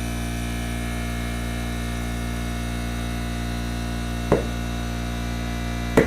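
Air compressor running with a steady hum as a new Michelin Pilot motorcycle tire is inflated, and two sharp pops, about four and six seconds in, as the tire's beads snap into place on the rim.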